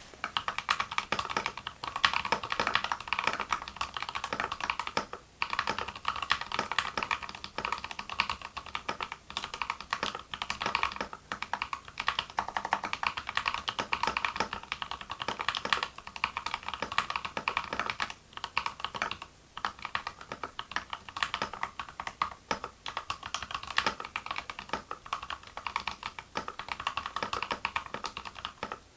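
Gamakay CK68 65% mechanical keyboard with a plastic case, unmodded, being typed on in a fast, steady stream of keystrokes, with a couple of brief pauses.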